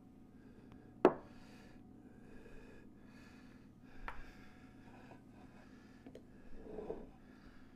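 Glassware and dishes handled on a wooden cutting board: one sharp clink about a second in, a lighter knock near the middle and a short clatter near the end, over a low steady background.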